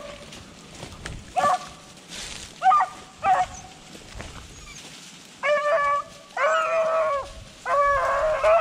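Hunting beagles baying in the brush: a few short yelps, then longer drawn-out bays from about five seconds in.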